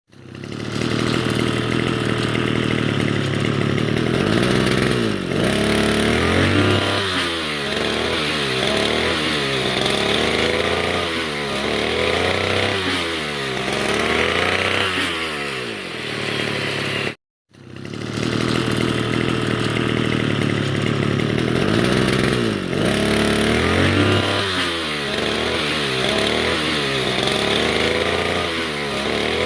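Brush cutter engine running and revved up and down over and over, its pitch rising and falling about every second and a half, after its clogged carburetor has been cleaned. There is a brief gap about two-thirds of the way through, then the same revving goes on.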